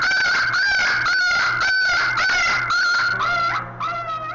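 Beagle puppy yelping in a rapid string of high-pitched cries, about three a second, while a needle is pushed into its head without anaesthetic: cries of pain. The cries grow weaker and more spaced about three and a half seconds in.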